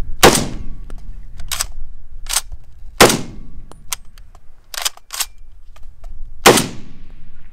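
Three .30-06 shots from an M1 Garand rifle, about three seconds apart, each echoing briefly. Between shots come sharper metallic clacks of the action being worked by hand, because the dry rifle needs lubrication and isn't cycling on its own.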